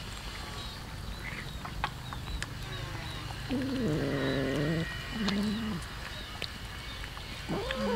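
Cats eating from a shared heap of rice and fish, with small chewing and licking clicks. A low, wavering cat call about three and a half seconds in, a short one just after, and another rising and falling call near the end.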